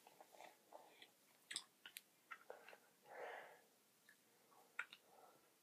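Faint chewing: a hard chewing-gum ball being worked in the mouth, with scattered small wet clicks and a soft rush of breath about three seconds in.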